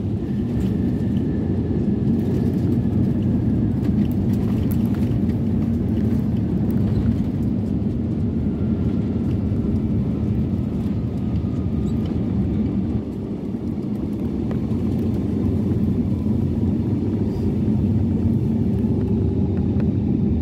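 Airliner cabin noise on the landing rollout: a steady low rumble of wheels and engines on the runway, with a faint whine slowly falling in pitch.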